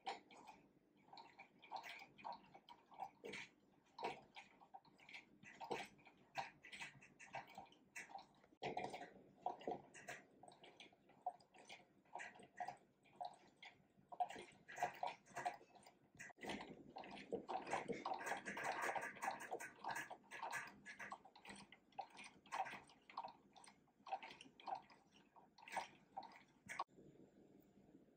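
Restored 1891 antique sewing machine, turned by its handwheel, stitching through cloth: its mechanism clicks a few strokes a second, with a faster, busier run past the middle.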